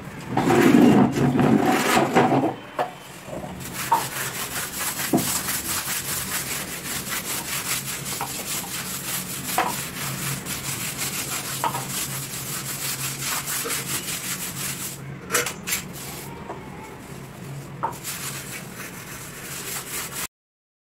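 Scrubbing a soapy bathroom floor by hand: a rapid, steady rasp of back-and-forth strokes over the wet floor, louder for the first two seconds.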